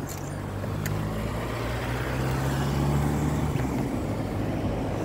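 A motor vehicle's engine running, a steady low hum that grows slowly louder.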